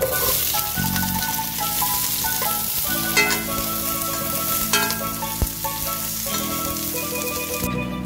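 Sliced red onion and garlic sizzling in hot oil in a stainless steel pot, stirred with a spoon that clicks against the pot a couple of times; the sizzle stops abruptly near the end. Background music plays underneath.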